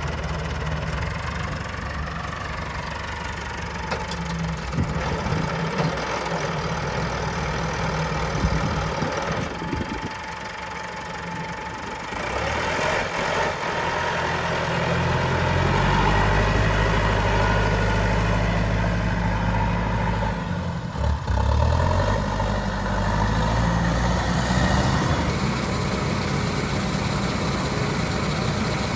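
Massey Ferguson 5711 tractor's diesel engine running steadily while carting bales, its note climbing and growing louder about halfway through as the revs go up.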